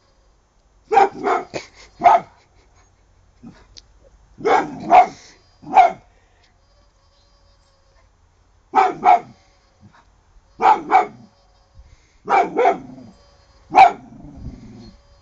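A puppy barking in short sharp clusters of one to four barks, with pauses of a second or two between them. It is alarm barking at a hooting owl garden ornament that has frightened it.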